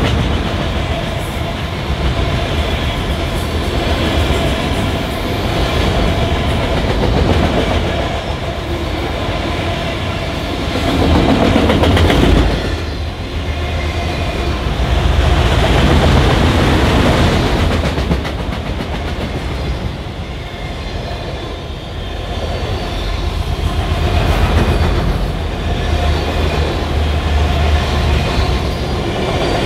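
Union Pacific freight train rolling past, its cars' steel wheels running on the rails in a steady loud rumble.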